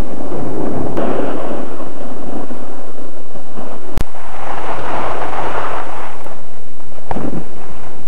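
Loud wind rushing over the microphone of a skier's head-worn camera while skiing downhill, swelling and easing, with a brief cut-out about halfway through.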